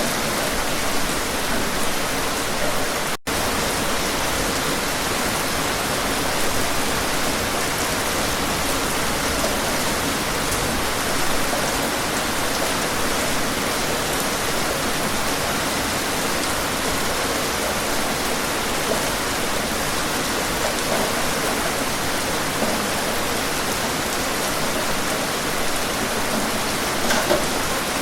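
Steady rain falling, an even hiss of drops, with a split-second dropout about three seconds in.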